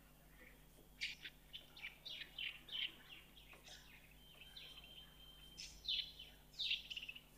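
Small birds chirping in quick, high, downward-sweeping notes, in several short runs, over a faint steady hum.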